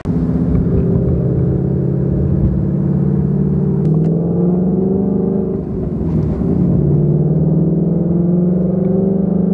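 2019 Ford Mustang GT's 5.0-litre V8 running through a Corsa Xtreme cat-back exhaust, heard from inside the cabin while accelerating on the road with a steady, deep drone. The note steps down about four seconds in and dips again around six seconds in, as it changes gear.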